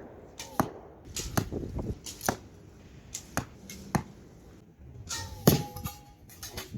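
Light clicks and knocks as a bow is readied, then, about five and a half seconds in, a louder sharp crack with a brief ringing tone: the bow is shot and the arrow strikes a large book.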